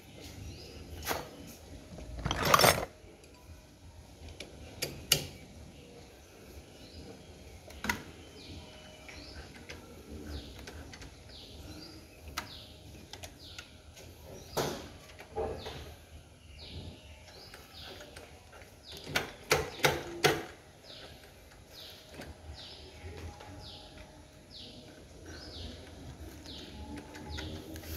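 Scattered metal clinks and knocks of hand tools on a motorcycle engine as the magneto flywheel is worked off with a puller, with a louder clatter about two seconds in and a quick run of knocks near twenty seconds. A bird chirps in the background from about nine seconds in, a short falling note roughly once a second.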